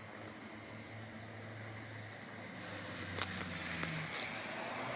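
A motor vehicle engine running steadily with a low hum, its pitch rising briefly near the end. A few light clicks sound about three seconds in.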